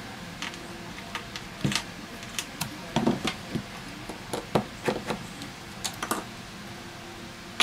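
Irregular light clicks and taps of a precision screwdriver and fingers working on a smartphone's plastic rear frame, with a sharper click at the very end.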